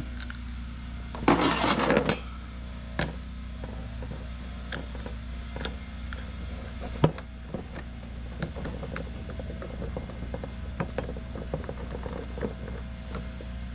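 Small scattered clicks and taps of a screwdriver against the plastic pulley and housing of a lawn mower recoil starter being fitted by hand, with a short burst of rustling noise about a second in and one sharp click about seven seconds in. A steady low hum runs underneath.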